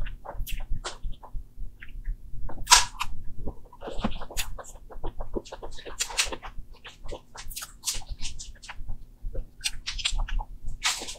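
Close-miked wet mouth sounds of someone eating soft cream cake from a spoon: irregular smacking and clicking of lips and tongue, several a second.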